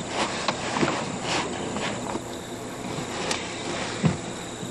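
Night insects, crickets among them, trilling steadily, with a few scattered soft clicks and knocks.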